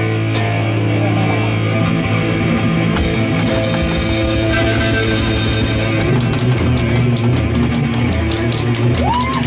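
Loud rock jam: an electric bass holds low, sustained notes under drums and a steady cymbal wash. Near the end a high note bends up and back down.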